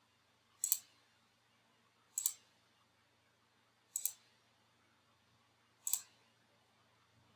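Computer mouse clicking four times, a second or two apart, each click a short double tick.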